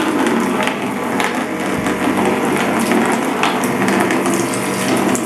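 Battery sprayer's electric pump (Umnitsa EOEL-12) running with a steady hum while water rushes through. The air lock has just been drawn out through the hose, so the pump is now delivering liquid.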